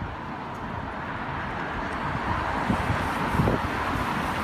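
Street noise of traffic on a wet road, a steady hiss that swells a little through the middle, with wind buffeting the phone's microphone in low, uneven rumbles.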